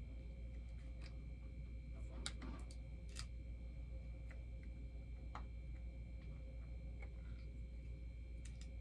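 Scattered light clicks and taps of bobblehead parts being handled and fitted together, a cluster of them a couple of seconds in and a few more near the end, over a steady low hum.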